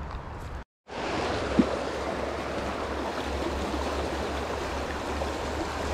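Steady rush of flowing river water, dropping out for a split second near the start, with one short tick about a second and a half in.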